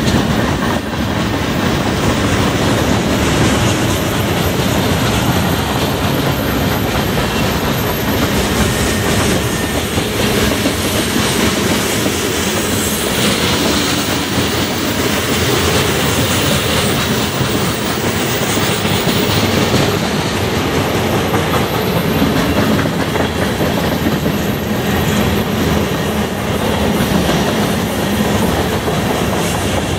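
Freight cars of a Canadian National mixed freight train rolling past, a steady loud rumble of steel wheels running on the rails.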